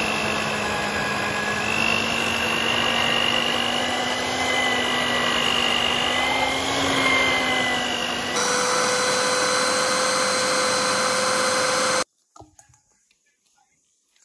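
An old electric stand mixer running with its dough hook through bread dough: a steady motor whine over a low hum, its pitch drifting slightly and shifting about eight seconds in. It stops abruptly about twelve seconds in, leaving only faint soft sounds of dough being kneaded by hand.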